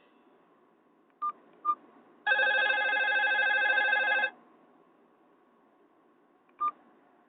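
Nokia 216 phone's speaker playing Nokia 7230 ringtone sounds: two short electronic beeps, then a steady, loud multi-note electronic ringtone tone for about two seconds that cuts off suddenly, and one more short beep near the end.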